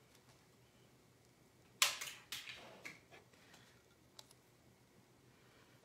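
A few sharp knocks and clicks on a mixing bowl while batter is being made. The loudest knock comes about two seconds in, and smaller taps follow over the next couple of seconds.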